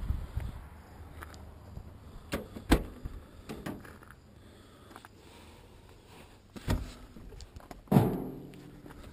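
The steel door of a 1983 Zastava 750 LE being worked: several sharp latch clicks and knocks as it is opened, then a loud, ringing clunk near the end as someone climbs in and pulls it shut.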